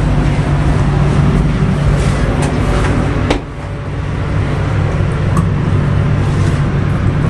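Steady low mechanical hum of a passenger train car's onboard machinery, heard inside the toilet compartment, with a sharp click a little over three seconds in after which the hum drops briefly.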